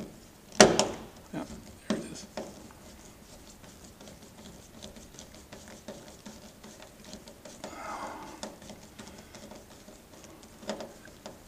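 Small hand screwdriver driving a screw up into a plastic wingtip adaptor: a sharp click about half a second in, a few smaller clicks, then a run of faint scratchy ticks as the screw is turned.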